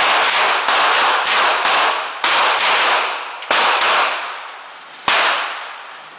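Handguns from several shooters firing three rounds each on a whistle command: about a dozen sharp shots at irregular spacing over five seconds, the last one about five seconds in, each shot followed by a lingering echo.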